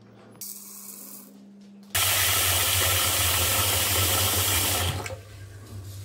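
Tap water running in a stream into a steel pot of rice. It starts suddenly about two seconds in and stops about three seconds later.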